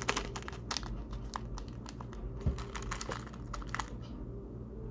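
Plastic packaging being handled, giving irregular clicks and crinkles, with one low thump about halfway through.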